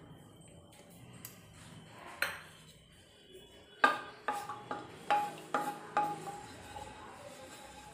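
A spatula knocking against a metal kadhai while melted ghee is stirred: one soft knock about two seconds in, then six or so sharp clinks in quick succession, the pan ringing after each.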